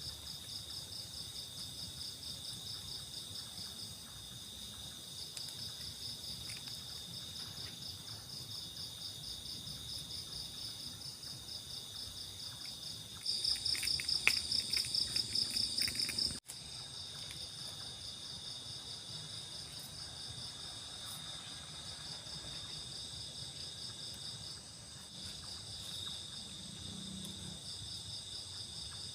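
Night insects chirring in a steady, high-pitched, rapidly pulsing chorus. About halfway through it grows much louder for some three seconds, then cuts off suddenly and resumes at its earlier level.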